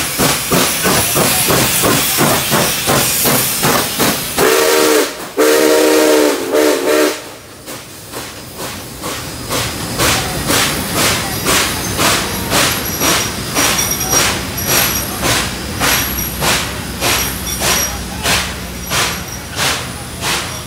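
Nickel Plate Road 765, a 2-8-4 Berkshire steam locomotive, passing close at speed with a quick, steady beat of exhaust chuffs and hissing steam. About four seconds in, its steam whistle sounds in two blasts, the second longer; after it the chuffing grows quieter as the tenders and cars roll by.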